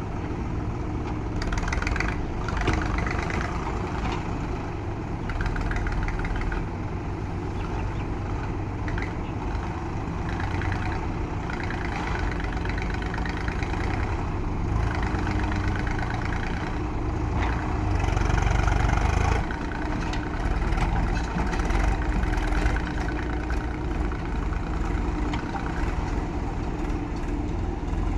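Diesel engine of a JCB 3DX backhoe loader running steadily and working under changing load, swelling louder at times as the machine digs and loads, with intermittent noisier stretches over the engine drone.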